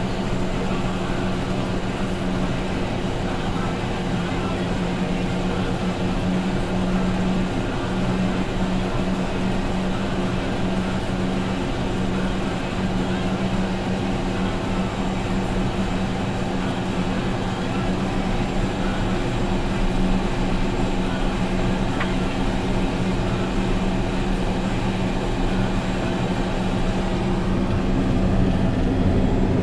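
Caterpillar D8T bulldozer's C15 six-cylinder diesel running steadily while the dozer pushes coal, growing slightly louder near the end.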